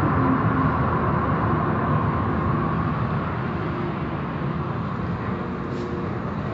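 Automatic car wash machinery running: a steady din of water spray, spinning cloth brushes and motors, with a faint whine in the first half. It gets slightly quieter toward the end.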